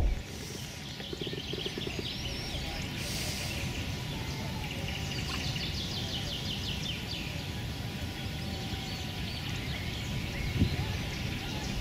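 Small birds singing and chirping, a dense chatter of quick repeated high notes and short whistled phrases, with a single short low thump near the end.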